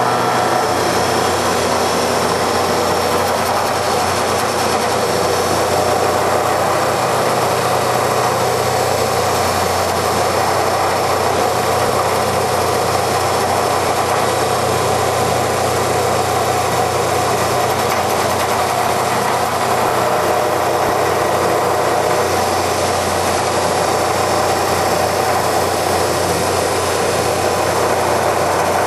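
Hydraulic automatic copy wood lathe running steadily: a constant machine drone with a low hum, unbroken throughout.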